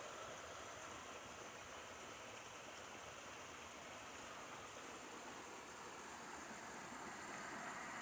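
Mountain stream running steadily over rocks, an even rush of water that grows a little louder near the end.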